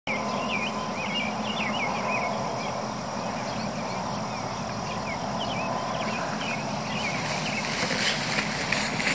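Open-field ambience: birds chirping over a steady background of outdoor noise. Near the end, irregular rustling comes in, like someone running through tall grass.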